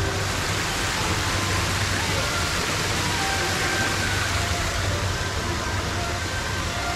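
Steady rushing splash of fountain water jets pouring into a pool, with a constant low hum underneath.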